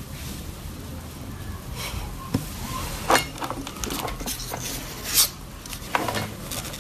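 Soft rustling and a few sharp clicks and taps of a hand handling a small kitten and picking it up, loudest about three seconds in and again about five seconds in, over a low room hum.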